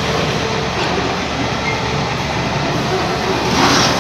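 Steady loud mechanical background noise, with a short rushing hiss near the end.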